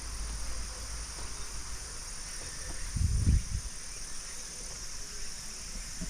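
A steady, high insect chorus outdoors in summer. A brief low rumble comes about three seconds in.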